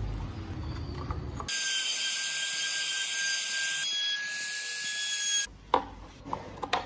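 A high-pitched small power tool running steadily for about four seconds, starting and stopping abruptly, followed by a few sharp knocks.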